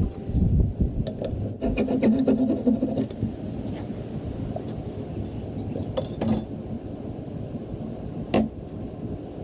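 Abrasive rubbing and scraping on wood, with a few sharp knocks.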